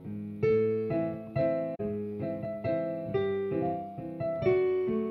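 Piano playing a slow melody over lower chords, roughly two notes a second, each note struck and left to ring and fade.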